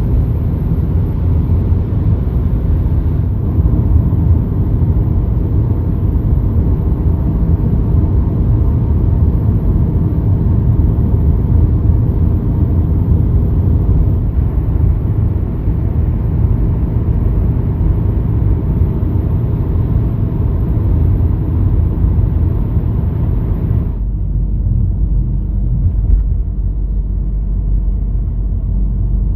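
Steady, loud low rumble, like a motor or vehicle running, that changes character abruptly about 24 seconds in.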